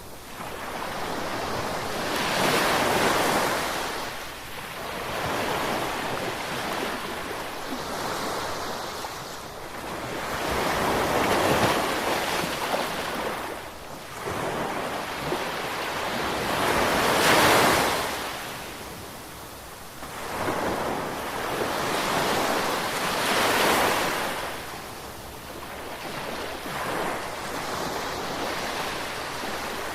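Ocean surf: waves breaking and washing in, a rushing hiss that swells and fades every several seconds, with about four larger surges.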